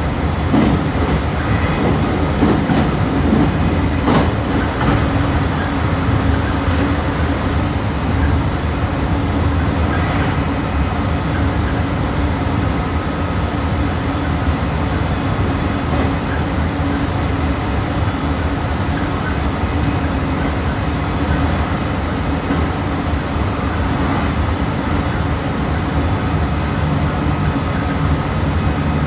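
Meitetsu 3150 series electric multiple unit running at speed, heard from inside the car: a steady rumble of wheels on rail with a constant motor hum.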